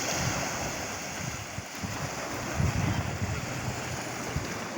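Ocean surf washing steadily, with wind gusting on the microphone in low rumbles, strongest about halfway through.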